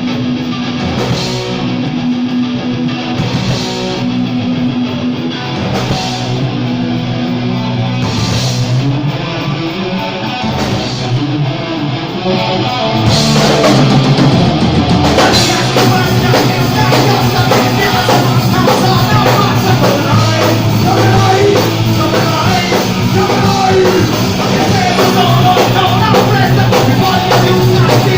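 Live punk band playing a heavy metal cover with distorted electric guitar. A guitar-led opening builds until about 13 seconds in, when the full band with drums comes in louder.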